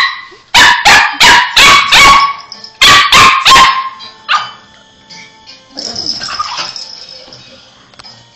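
Small dogs yapping during rough play: a run of about eight sharp, high barks in quick succession over the first four seconds, then quieter.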